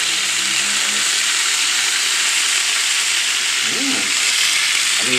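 Canned lechon sisig frying in hot oil in a pan with onions: a steady, loud sizzle.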